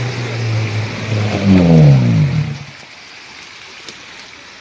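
Small engine of an off-road Trudovec running steadily, then getting louder as its pitch falls sharply, and dying out about two and a half seconds in.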